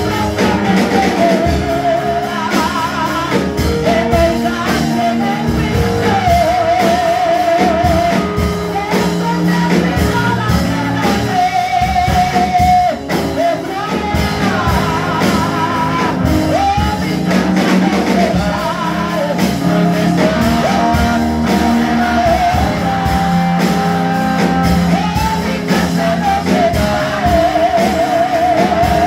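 A woman singing a worship song into a microphone, holding long notes with a wavering vibrato, over steady instrumental accompaniment.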